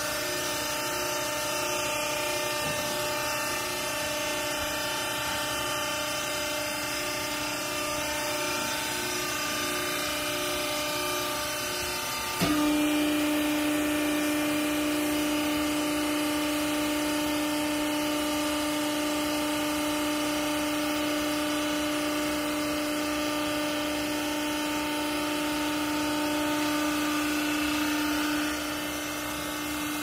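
Vertical hydraulic textile baler's hydraulic pump motor running with a steady electric hum. About twelve seconds in it changes suddenly to a louder, lower steady drone, which eases again near the end.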